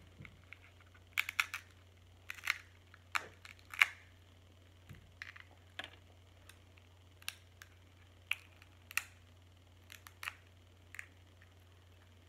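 Close-miked eating of snow crab: irregular short, sharp clicks and snaps as the crab shell is picked apart, mixed with wet mouth smacks while chewing, over a faint steady low hum.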